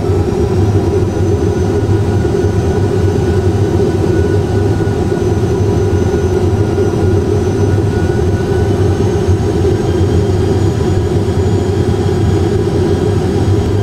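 Airbus A320 full flight simulator's cockpit sound: steady simulated jet engine and airflow noise in flight, with a faint high whine over it.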